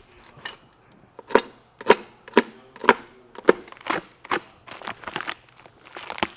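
A series of sharp knocks and snaps, about two a second, as a box of parts is being opened and handled.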